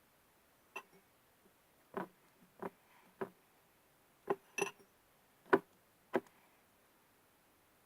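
Homemade glue-and-borax slime being worked in a container, with about eight short sticky pops and taps at irregular intervals.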